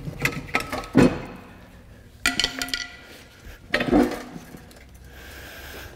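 Metal clinks and knocks of a hand tool and engine parts as the last fastener comes out and the engine is separated from the manual transmission. There are a few small clicks at the start, a sharp knock about a second in, a cluster of ringing clinks past two seconds, and another knock around four seconds.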